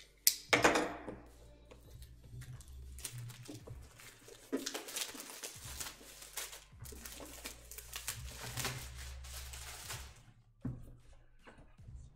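Card box being unwrapped and opened by hand: a sharp knock just after the start, then several seconds of crinkling, rustling packaging and small clicks and knocks as the box is handled and its lid lifted.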